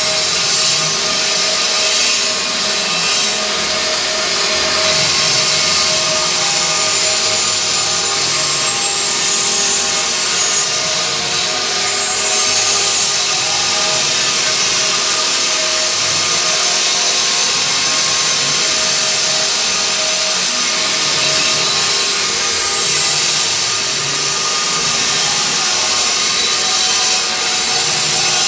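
Stone CNC router at work, its spindle cutting stone with a steady harsh grinding and a constant whine.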